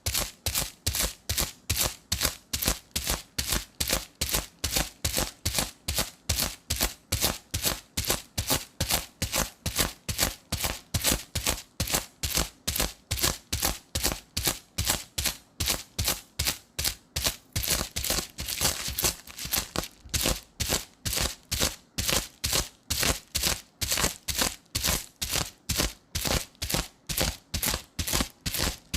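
Adhesive tape dabbed onto sticky glue residue and peeled off over and over, a short crackling peel about three times a second. About two-thirds of the way through, one longer, continuous peel breaks the rhythm.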